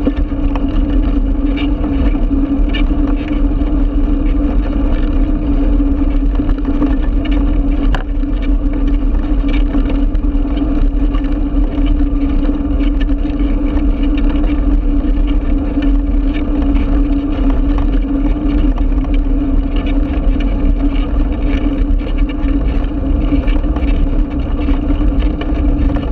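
Steady rumble of a bicycle rolling over brick paving, picked up by a camera mounted on the bike, with a constant low hum under it.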